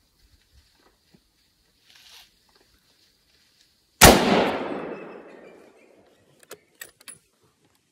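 A single rifle shot about four seconds in, very loud, its report dying away through the woods over about two seconds. A few faint clicks follow.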